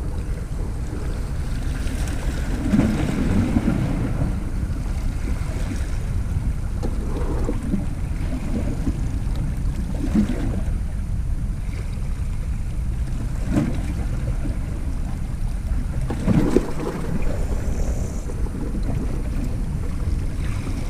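Wind rumbling on the microphone in gusts, over small waves lapping against a rocky sea edge.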